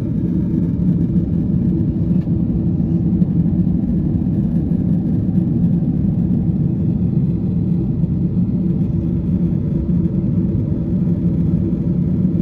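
Steady low rumble of a Boeing 777-300's cabin in flight: engine and airflow noise.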